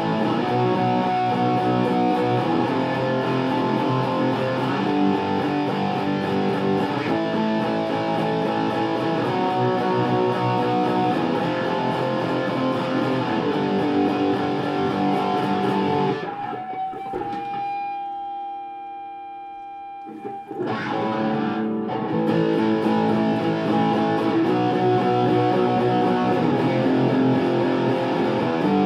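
Electric guitar played through a BOSS SD-1 Super OverDrive pedal, switched on, giving an overdriven tone as it plays a run of chords. A little past halfway the playing stops on one held note that rings and fades for a few seconds, then the chords pick up again.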